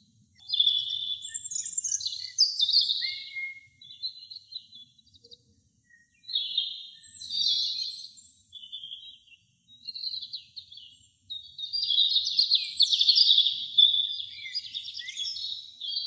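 European robin singing: high, rapid warbling and trilling phrases in three bouts separated by short pauses, the last and longest bout running through the final few seconds.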